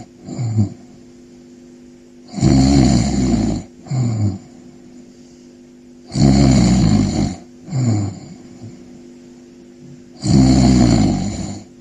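Snoring: a long snore, then a short sound that falls in pitch, repeating at an even pace about every four seconds, three times.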